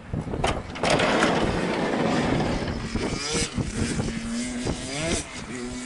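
Dirt bike engines running on the track: a loud rushing pass in the first few seconds, then engine pitch climbing again and again as the bikes rev up through the gears.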